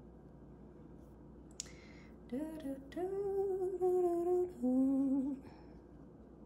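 A woman humming a few wavering notes of a tune for about three seconds, starting about two seconds in, after a short click.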